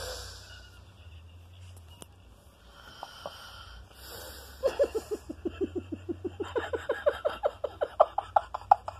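A sleeping woman snoring: soft, noisy breaths in the first few seconds. Then, from about halfway, a louder rapid train of short pulses, about eight a second, climbing steadily in pitch.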